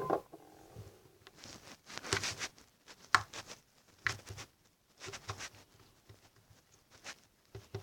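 Homemade shaving-foam slime being squeezed and handled by hand, making soft, irregular squishing and crackling sounds.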